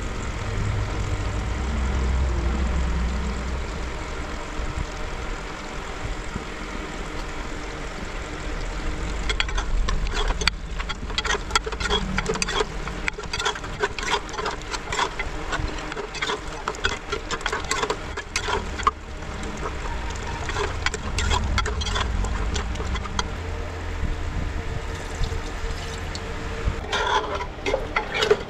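Thick meat curry bubbling and spitting in an open pot on the stove: irregular pops and crackles start about a third of the way in and run on densely. A steady low rumble runs underneath.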